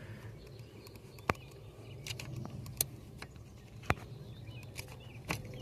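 About five scattered light metallic clicks and taps as a small flathead screwdriver presses the release pin of a 1990 Ford Ranger's ignition lock cylinder while the key is worked to pull the cylinder out.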